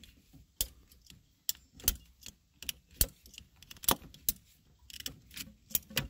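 A hand cutter clicking and snapping as it is squeezed through a 3/4-inch rubber heater hose. The sharp clicks come about once a second, the loudest about three and four seconds in.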